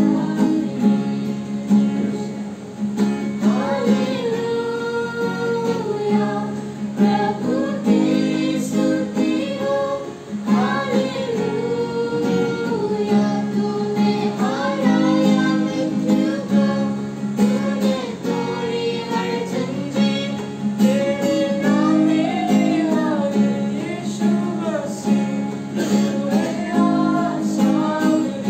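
A woman sings a song with her own strummed acoustic guitar, with boys' voices singing along from song sheets.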